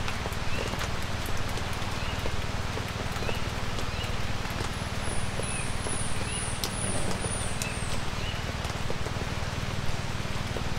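Light rain falling in woodland: a steady patter with scattered drip clicks and a low steady rumble underneath. A short rising chirp repeats about once a second, and a quick high series of chirps sounds from about five to eight seconds in.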